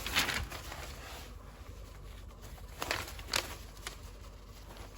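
Rustling of an old newspaper sheet being handled: a rustle at the start, then two short crisp rustles about three seconds in.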